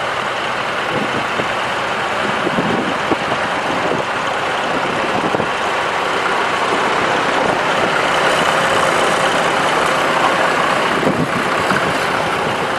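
Ford 4000 tractor's 2.8-litre four-cylinder gas engine running steadily, getting slightly louder for a few seconds past the middle.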